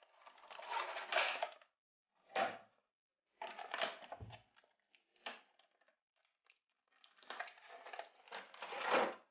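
Clear plastic blister tray of an action figure's packaging crinkling and crackling as it is handled and pulled from its box, in four bursts with short pauses between them. There is a soft low knock about four seconds in.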